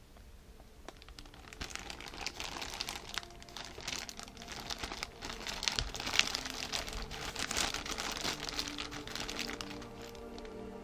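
Clear plastic packaging bag being handled and turned over, crinkling and crackling. Background music comes in near the end.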